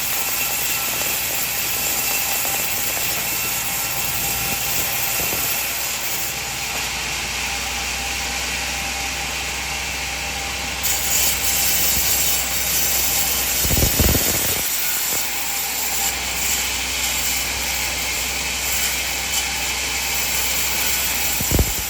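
Sawmill machine running on coconut wood: a steady, mostly high-pitched mechanical noise that gets louder and brighter about halfway through, with a thump about two thirds of the way in and another near the end.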